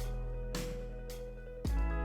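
Background music: sustained instrumental chords with a bass line, the chord changing about 1.7 s in.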